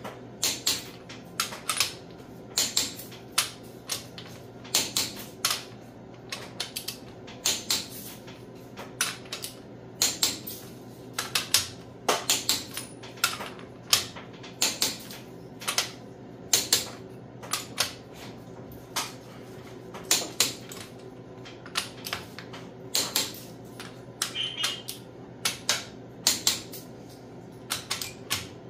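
Socket ratchet wrench clicking in short quick bursts as it is swung back and forth on cylinder-head bolts, checking that each is tight.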